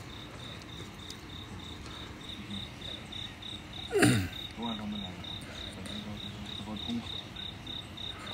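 A cricket chirping steadily at one high pitch, about three chirps a second. A short falling sound comes about four seconds in.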